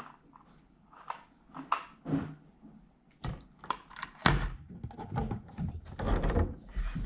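Handling noise from an LED ring light kit being assembled: scattered light clicks and rustles, then from about three seconds in a run of louder knocks and thumps with a low rumble close to the microphone.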